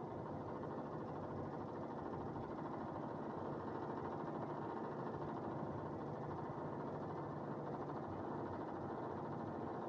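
Steady, muffled background noise with no distinct events and no thunder.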